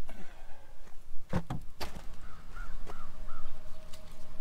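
A few sharp knocks and clacks of plastic wheel chocks and leveling blocks being picked up from beside an RV tyre, with a bird calling about four times in the background.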